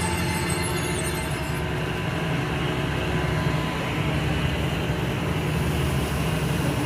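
Ferry's engine running with a steady low hum.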